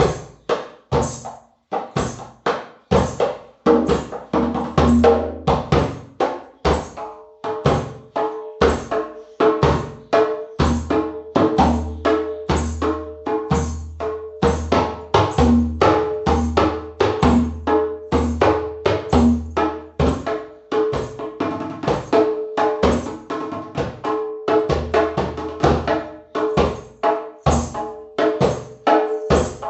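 Background music with a steady drum and percussion beat, a held mid-pitched tone coming in about a quarter of the way through, and deep bass notes that drop out about two-thirds of the way in.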